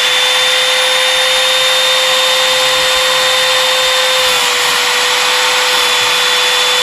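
Sliding chop saw's motor running at full speed with a steady high whine, the blade being eased down into a 1x4 trim board; the pitch drops slightly about four seconds in as the blade takes the load of the cut.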